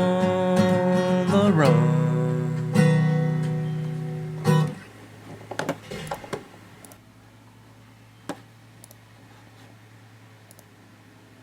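Acoustic guitar playing the last strummed chords of a song, with a chord change about a second and a half in, letting them ring and stopping about four and a half seconds in. A few soft knocks and a faint steady hum follow.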